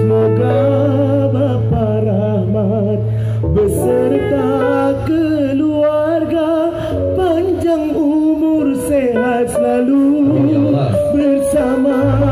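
Live dangdut music played loud through a stage PA: a singer's wavering, heavily ornamented vocal line over an amplified band with a steady bass note.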